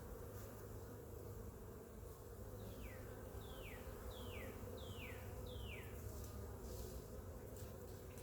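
Honeybees at an open hive buzzing in a steady hum. Five short falling whistles come in quick succession from about three to six seconds in.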